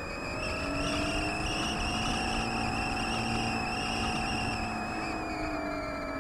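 Radio-controlled flying wing's motor and propeller whining in flight, heard from on board with air rushing past. The pitch rises about a second in, holds, and falls again near the end.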